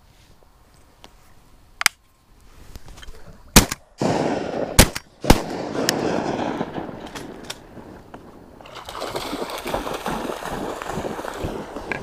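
Shotguns firing about four times within a few seconds at waterfowl, the second and third shots the loudest, with rustling between the shots.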